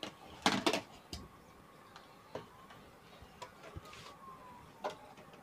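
Scattered clicks and light knocks from handling a CRT TV's circuit board and its wiring, the loudest pair about half a second in and another near the end. A faint, thin tone glides slowly downward in the second half.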